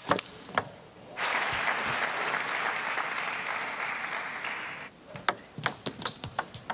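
Table tennis ball clicking off the bats and table in a quick rally, then the arena audience applauding for about four seconds once the point is won. The applause drops away and more ball strikes follow near the end.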